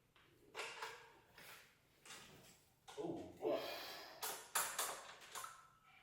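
Scattered short knocks and scrapes of heavy metal parts being shifted, as a transmission is jacked and nudged into line with the engine. The clatter thickens about halfway through, with a brief exclamation.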